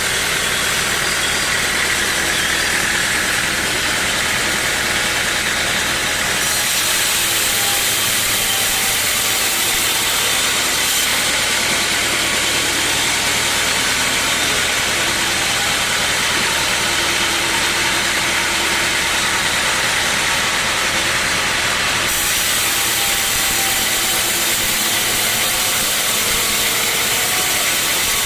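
Sawmill saw running steadily and cutting through a teak log, a loud, continuous machine noise with a strong hiss. The hiss shifts about six seconds in and again about twenty-two seconds in.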